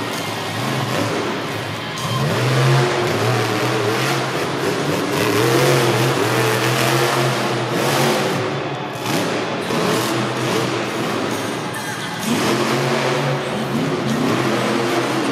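Monster truck engines revving, their pitch rising and falling over and over, with music playing underneath.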